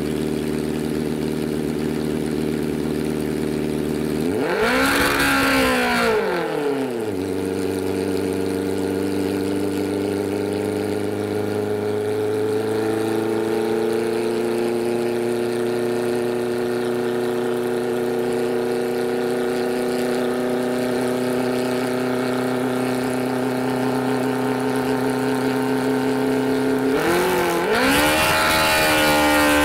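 Engine of a homebuilt helicopter running on the ground and turning the main rotor through a chain drive. It idles, is revved up and back down about four seconds in, then runs steadily at a faster speed, and is revved up again near the end.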